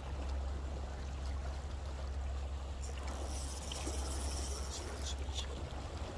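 Steady low drone of a passing boat's engine, with seawater washing and trickling over the shore rocks.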